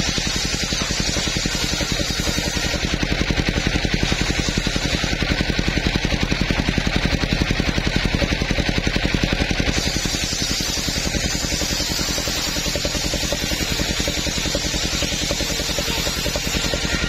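Table circular saw ripping coconut-wood planks: a dense cutting hiss from the blade over the rapid, even pulsing of the engine that drives it.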